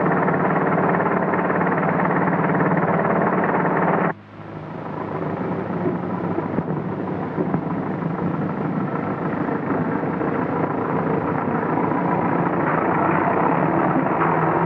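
Scania truck's diesel engine running steadily with an even hum. The sound drops out suddenly about four seconds in, then builds back up and carries on.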